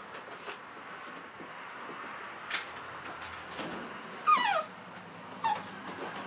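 Cavalier King Charles Spaniel puppy whimpering: a falling whine about four seconds in, then a shorter one about a second later.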